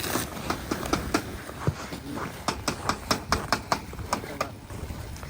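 Irregular sharp crunches and clicks, several a second, from a pop-up ice-fishing tent being handled and opened out on snowy lake ice, over a low rumble of wind.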